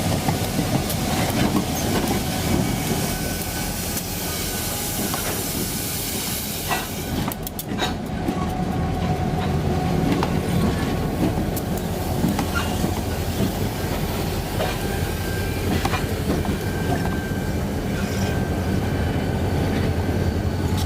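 Freight train cars rolling past, steel wheels clicking over the rail joints over a steady low rumble, with a high hiss for a few seconds near the start.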